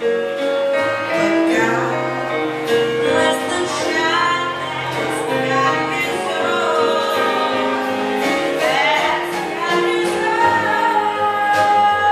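Live blues band playing for dancers, with a voice singing over the instruments; the music swells louder right at the start.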